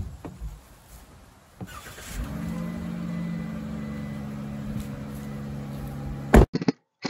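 Ram ProMaster van's engine starting about two seconds in and then idling steadily. A loud thump comes at the very start and another cuts the idle off near the end.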